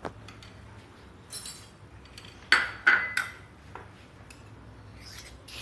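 Metal kitchen utensils clinking against each other: a light knock, then two or three sharp ringing clinks close together about two and a half seconds in, over a faint steady hum.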